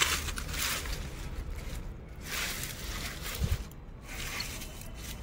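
Bitter gourd vine leaves rustling and camera handling noise as the phone is pushed through the foliage, in irregular swells, with a soft thump about three and a half seconds in.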